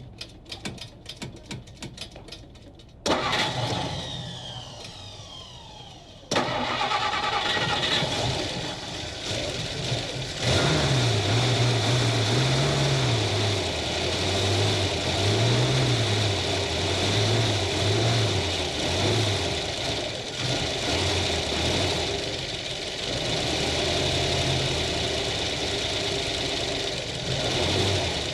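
Car engine being started: about three seconds of rapid clicking and cranking, then it catches and runs. It revs up and down several times, then settles into a steady run.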